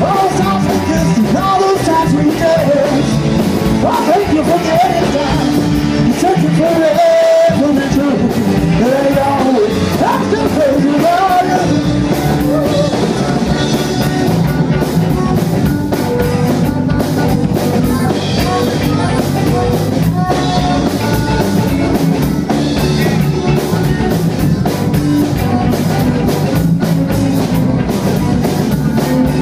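A live rock and roll band playing: electric guitar, bass and drum kit. A lead line wavers and bends over the band through the first dozen seconds or so.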